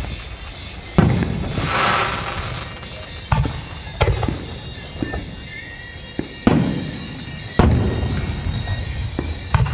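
Aerial firework shells bursting: about six sharp bangs at uneven intervals, each trailing off in echo.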